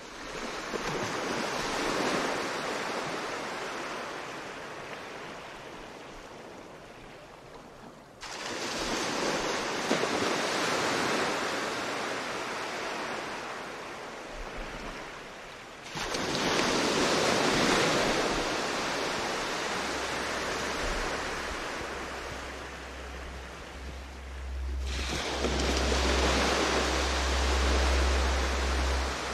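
Ocean waves breaking on a shore: four surges, one about every eight seconds, each coming in suddenly and slowly washing away. A low rumble grows underneath in the second half.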